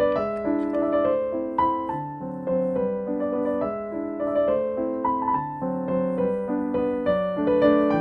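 Background piano music: a steady, gentle run of single notes over sustained chords.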